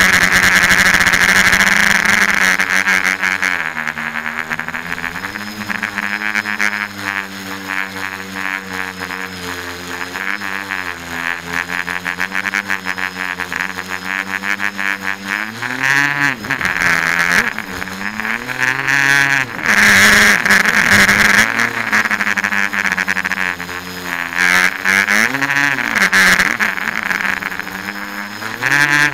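Tricopter's three electric motors and propellers whining, the pitch swooping up and down as the throttle changes. The sound gets louder in full-throttle bursts near the start, about two-thirds of the way through and near the end.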